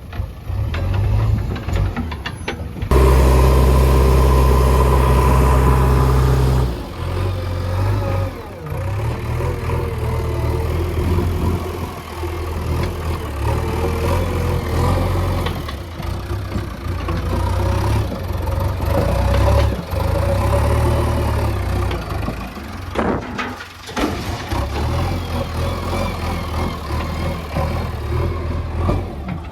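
Diesel engine of a JCB 3DX Eco Xpert backhoe loader working, its pitch rising and falling with the load. It revs hard from about three seconds in and drops back after about seven seconds.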